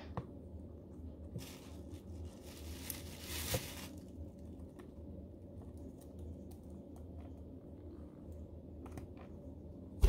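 Blue Quaker parrot (monk parakeet) tearing and nibbling fresh coriander leaves with its beak. It makes faint crinkling, rustling and small clicks, with a longer rustle from about one and a half to four seconds in.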